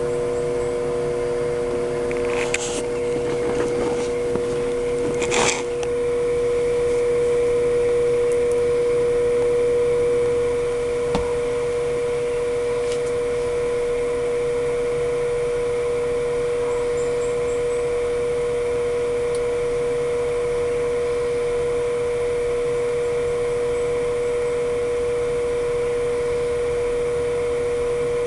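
Steady electric hum of an egg incubator's fan, with one clear steady tone. There are two short knocks and rustles a few seconds in.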